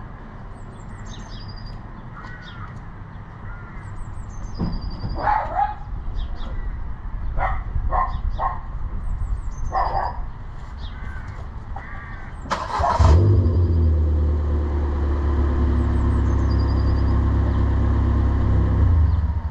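Ford Fiesta's engine starting with a sudden burst about two-thirds of the way in, then idling steadily, run so the front wheels can be turned to reach the brake calipers. Before it, a few short sharp sounds and high chirps.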